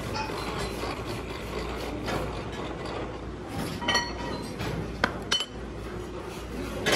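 Metal-on-metal clinks and knocks as a workpiece and tooling are handled on a metal lathe, over a steady workshop hum. One ringing clink comes about four seconds in, then two sharp knocks about a second later.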